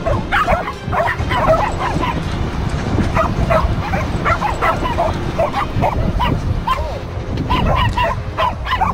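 Samoyeds barking and yipping in play: a rapid, excited run of short high-pitched calls, one after another, with a steady low rumble beneath.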